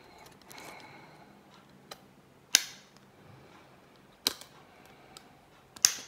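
Victorinox SwissChamp pocket knife tools snapping against their backsprings: three sharp metallic snaps, about a second and a half apart, with faint handling clicks between them.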